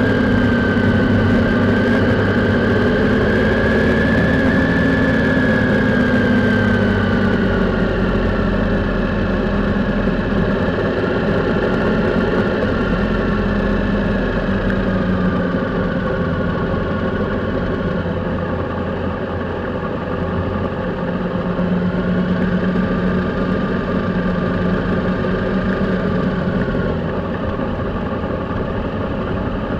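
Triumph Sprint motorcycle's three-cylinder engine running on the move, heard from a camera mounted on the bike. The engine note rises a little and eases off a few seconds in, then holds steadier. There is a rush of wind noise underneath.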